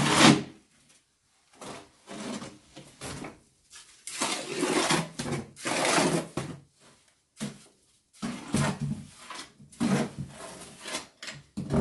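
Steel trowel scraping wet cement plaster off a plasterer's hawk and smearing it onto a stone-and-brick wall, in a run of scraping strokes with short pauses between them.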